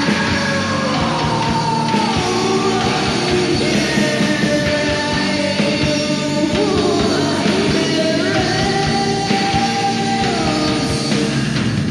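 Rock band music, dense and steady, with singing and pitched lines that slide down and back up.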